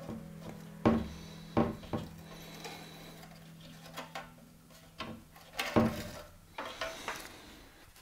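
Light knocks, taps and rubbing from hands working at a carbon bike frame's bottom bracket shell, pressing resin-wetted carbon repair patches into place inside the tubes. Quiet background music runs under it and fades out about halfway.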